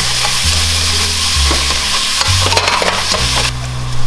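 Ground turkey and onions sizzling as they brown in a stainless steel pan, stirred and scraped with a spatula. The sizzle drops off suddenly near the end.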